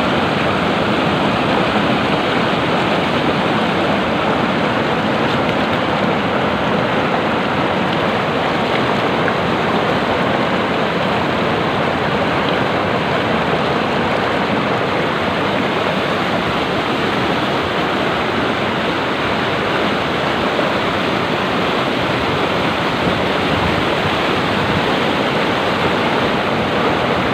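Hill stream water rushing and splashing steadily, a loud even noise that does not let up.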